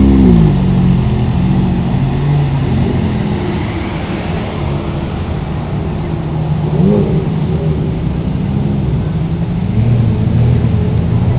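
Ferrari sports car engines as the cars drive past one after another. The revs climb and drop right at the start and again about seven seconds in, and a lower, steadier engine note takes over near the end.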